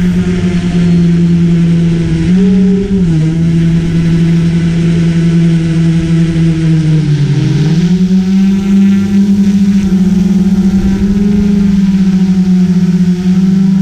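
GoPro Karma quadcopter's motors and propellers humming steadily in flight. The pitch rises briefly about two seconds in, then dips and recovers around seven seconds as the drone manoeuvres.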